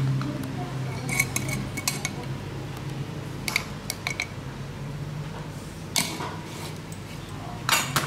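Metal spatulas clinking and scraping on the steel cold plate of a rolled ice cream stand: a handful of sharp clinks a second or two apart, over a steady low hum.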